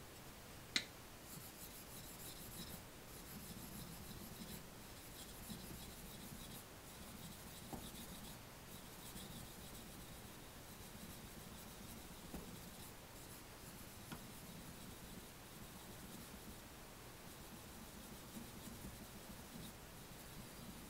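Blade of a small Japanese namazori kogatana being stroked on a wet natural waterstone: a faint, soft scraping rub. A sharp click about a second in, and a few light ticks later.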